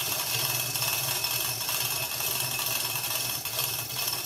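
Manual chain hoist being hand-pulled, its chain rattling and clicking steadily through the hoist as it lifts an engine out of the engine bay.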